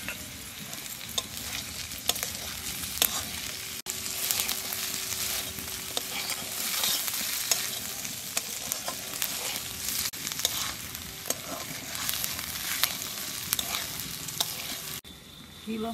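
Onions, garlic, ginger and dried red chillies sizzling in hot oil in a metal kadai, while a metal spatula stirs and scrapes them round the pan with frequent sharp clicks of metal on metal. The sizzle drops quieter about a second before the end.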